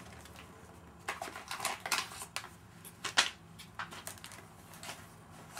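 Packaging being handled while an iMac's accessories are lifted out of the box: rustling with scattered clicks and taps, busiest in the first half, and the loudest a sharp click a little past three seconds in.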